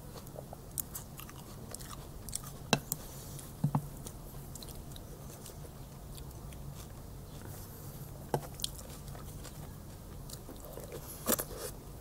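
A man eating from a wooden spoon: close mouth sounds of chewing and lip-smacking, with scattered short sharp smacks, the loudest about a quarter of the way in and near the end. A steady low hum runs underneath.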